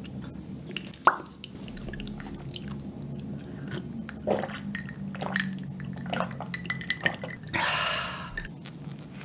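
Close-miked eating sounds: wet lip smacks and mouth clicks from licking a wooden spoon of soft cup pudding, then gulps from an iced drink sipped from a glass mug about four seconds in. A short breathy rush follows near the end, over a low steady hum.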